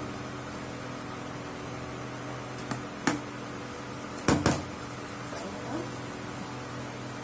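Steady electrical hum of an induction cooktop running under a pan, holding several fixed tones. A few sharp knocks cut through it, the loudest a pair about four and a half seconds in.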